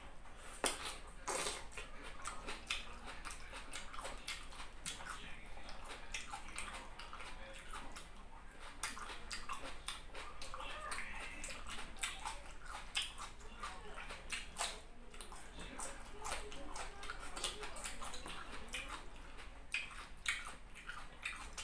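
Close-up mouth sounds of a person chewing soft food with the mouth open: wet smacks and irregular clicks all through.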